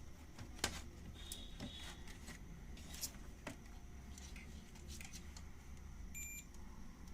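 Faint clicks and taps of test probes working over an amplifier's circuit board while its driver transistor is checked. Two brief high electronic beeps come, one after about a second and one near the end, over a low steady hum.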